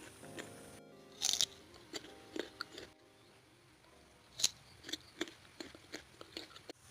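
Crunchy bites and chewing of crisp raw fruit from a lotis fruit platter, close to the microphone, in a series of sharp crunches with two loud bites about a second in and about four and a half seconds in. Soft background music plays under the first second.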